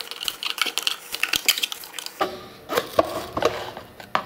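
Long metal screwdriver scraping and prying inside an emptied plastic charcoal canister housing, working at an inner part that seems glued or molded into the case. Irregular crunching scrapes and clicks, dense for the first two seconds, then fewer and sharper clicks.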